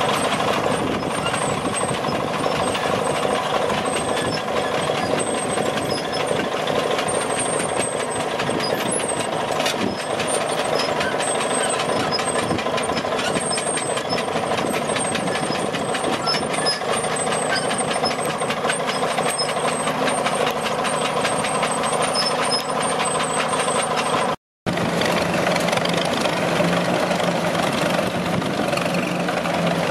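Fowler Challenger 1 crawler tractor's engine running steadily under load while towing a disc harrow. After a sudden break near the end, a 1929 Hart-Parr 28-50 tractor engine runs while pulling a plough, with a steadier low hum.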